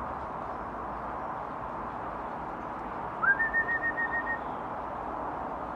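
A person whistling, about three seconds in: a short rising note, then a quick run of about eight short notes at one steady pitch. Another rising whistle starts right at the end. Steady background noise runs underneath.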